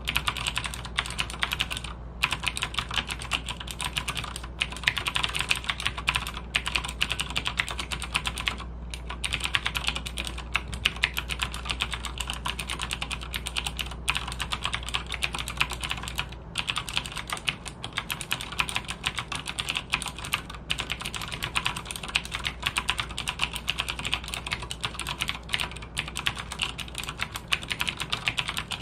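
Logitech G610 mechanical keyboard with clicky Cherry MX Blue switches being typed on steadily, a continuous stream of sharp key clicks broken by a few short pauses.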